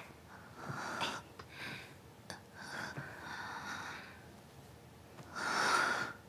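A hungover woman's heavy, breathy exhalations and sighs as she is helped to sit up in bed: three breaths, the last and loudest near the end.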